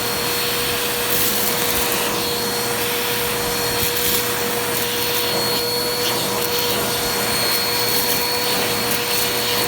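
Bissell vacuum cleaner running steadily with a steady whine over its hiss, picking up rice through an attachment tool, with brief high-pitched rises in the hiss now and then.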